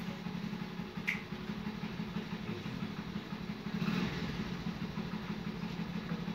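A steady low machine hum, engine-like, with a short click about a second in.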